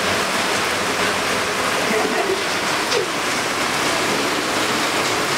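Steady rushing, water-like noise, with faint brief voice sounds about two and three seconds in.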